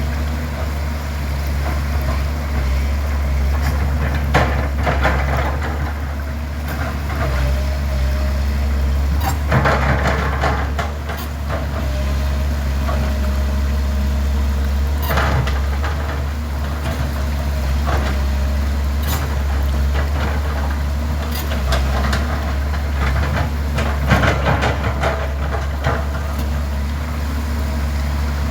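Heavy diesel engine of an excavator running steadily, with several short bursts of scraping and knocking as it works the mud off a roller.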